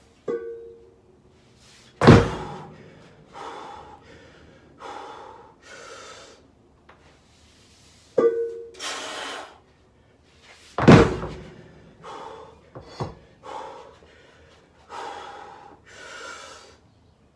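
Heavy loaded steel farmers-walk handles, 230 lb each, clanking and ringing as they are lifted, then dropped to the concrete floor with a heavy thud, twice. Hard, rhythmic breathing between the lifts.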